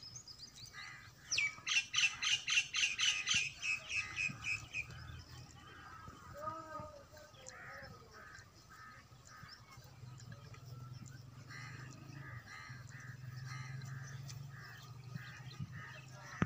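Birds calling: about a second and a half in, a loud rapid run of high calls, about five a second, lasting some three seconds, then softer short chirps repeating at an even pace. A low steady hum sets in about ten seconds in.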